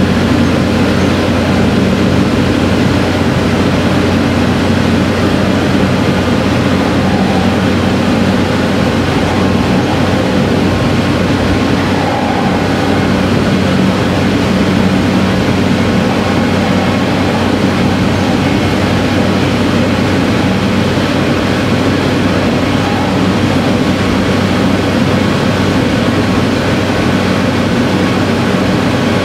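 Sanriku Railway diesel railcar running steadily, a continuous low engine drone mixed with wheel and rail rumble, heard from inside the car.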